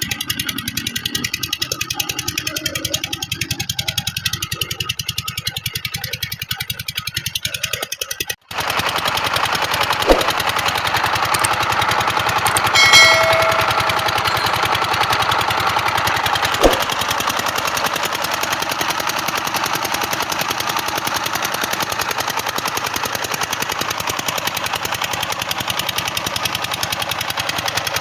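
Petter diesel engine running, with a fast, even knocking beat. The sound drops out briefly about eight seconds in and comes back brighter, with a short high-pitched squeak about halfway through.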